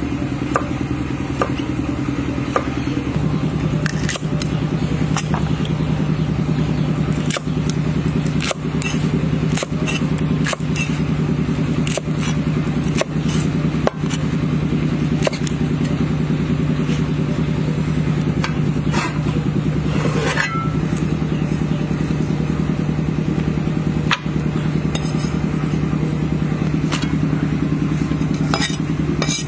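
Cleaver chopping cucumber and long beans on a wooden board: sharp knocks at an uneven pace, about one a second. Under them runs a steady motor drone whose pitch drops a few seconds in and rises again near the end.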